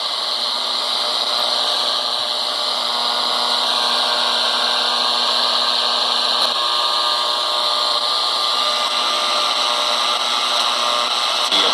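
QFX portable shortwave radio's speaker giving out a steady hiss of static with a faint buzzing hum of interference under it, tuned off any station while scanning the band.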